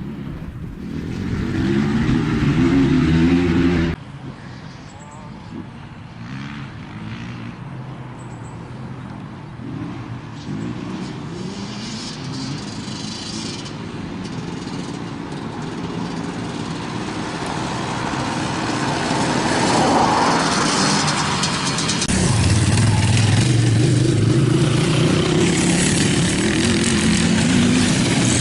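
Off-road vehicle engines revving and running under load as they drive through the course. A loud rising rev breaks off abruptly about four seconds in, then engine noise builds again and is loudest near the end.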